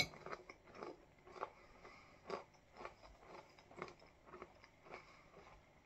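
Faint close-up chewing of a mouthful of crunchy oat-cluster granola in milk with a dried banana slice: soft crunches at an uneven pace, about two a second.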